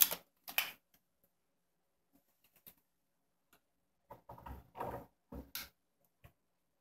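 Scattered light clicks and taps as a screw and cordless drill bit are set against the metal end cap of a foosball table's bead slide scorer, mostly in a cluster about four to six seconds in.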